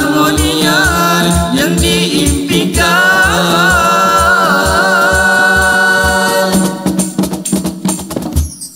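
Nasyid group singing in close vocal harmony, a lead voice with vibrato over backing voices, with a steady hand-drum beat. About six and a half seconds in the voices stop, leaving a run of sharp percussion strikes.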